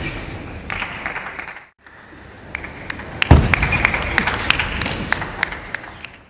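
Crowd applauding in a large arena, the clapping heard as a dense patter of claps. The sound drops out briefly near two seconds, a sharp thud comes about three seconds in, and the applause then fades away at the end.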